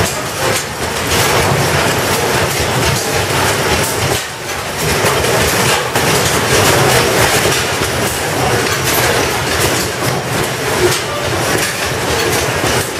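Antique stationary gas engines running, with a rapid run of repeated knocks over a steady mechanical din.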